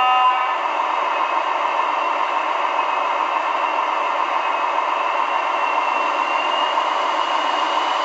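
Sound-decoder diesel engine of a Roco model CD Cargo class 750 locomotive, played through the model's small speaker: a steady running drone with no bass, and a faint whine slowly rising in pitch in the second half. A horn note cuts off a fraction of a second in.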